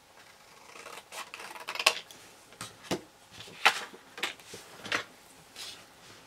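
A strip of paper handled and folded by hand: a series of short rustles, crackles and taps, with scissors moved about on the wooden tabletop. The sharpest taps come about two seconds in and again near four seconds.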